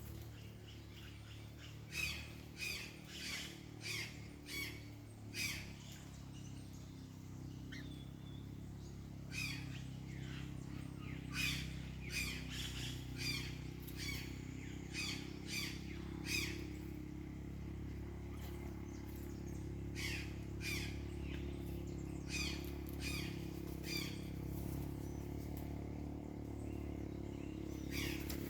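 Birds giving short, harsh squawking calls, one after another at roughly two a second, in three bouts with pauses between. A steady low rumble runs underneath.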